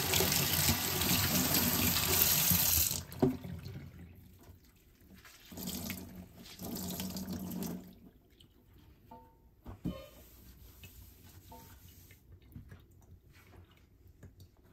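Kitchen tap running water into a stainless steel sink, cut off about three seconds in. A few seconds later comes a shorter, quieter spell of splashing water, then a few small knocks and drips.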